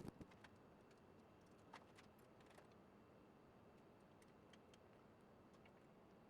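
Near silence with a few faint, scattered clicks, most of them in the first three seconds.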